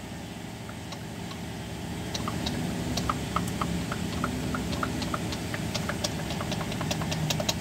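Diesel fuel system hand priming pump being worked to bleed air after a fuel filter change, with short clicks at about three to four a second. The pumping is slow because both filter housings are still empty. A steady low engine hum runs underneath.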